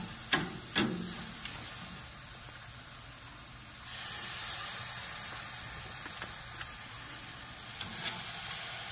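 Skewered meat sizzling on a hot charcoal grill, a steady hiss that gets louder about four seconds in. Two short clicks of metal tongs against the grill grate come in the first second.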